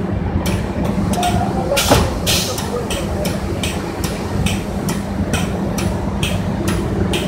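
Automated conveyor machine running: a steady mechanical hum under a regular beat of short, sharp, hissy clicks about two and a half times a second, with one heavier knock about two seconds in.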